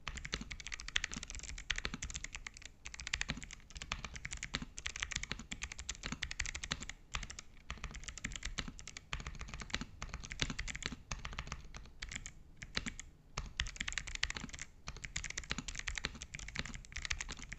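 Fast, continuous typing on a mechanical keyboard with Kailh Box White clicky switches: rapid crisp clicks with a few brief pauses between bursts.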